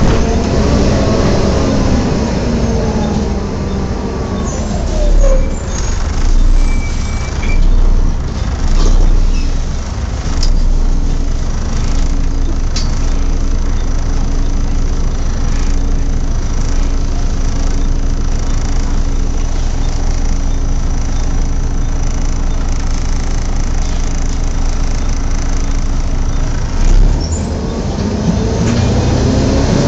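Volvo B7TL double-decker bus heard from inside: the engine note falls away as the bus slows, there are several low thumps, and then it stands with a steady hum from the engine and its loud hoover-like cooling fan. Near the end the engine revs rise again as it pulls away.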